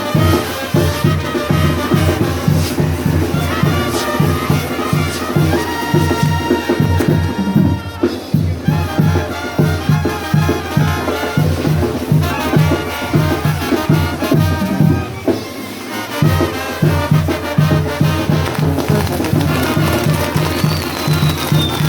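Latin brass-band music with trumpets over a steady, pulsing bass beat. A high whistle slides down in pitch near the end.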